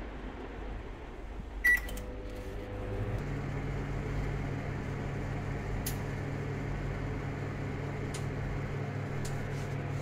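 Samsung 28-litre microwave oven: a short beep as the start button is pressed, then the oven starts running with a steady low hum that grows stronger about three seconds in. A few sharp crackles come from the peanuts roasting inside.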